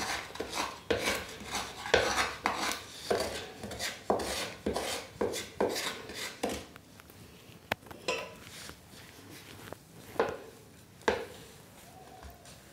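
Flat spatula scraping around a shallow frying pan, pushing soft cashew dough in from the sides: a run of quick scrapes about two a second that thins out in the second half, with one sharp click near the middle.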